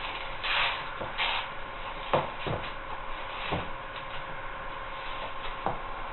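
Hands pressing and rubbing a heat-softened sheet of fan-fold foam into a mold on a board table: scuffing and rustling, with several light knocks as the mold shifts on the board. A faint steady hum runs underneath.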